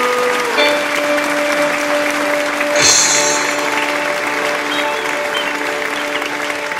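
The final chord of a song held out to the end, with applause over it. A sharp crash with a hissing tail comes about three seconds in.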